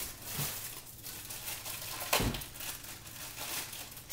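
Plastic packaging crinkling and rustling as items in poly bags are handled and unwrapped, with one sharp thump about two seconds in.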